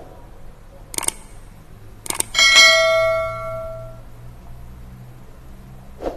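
Two sharp clicks, then a single bell-like ding about two and a half seconds in that rings on and fades over about a second and a half. Another click comes near the end.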